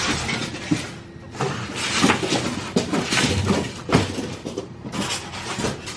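Irregular rustling and clattering of furniture-assembly hardware and parts being handled, with short knocks and small metallic clinks.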